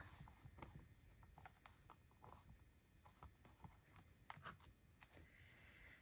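Near silence with faint, scattered light taps and rustles from a tag and a stamping tool being handled and set in place.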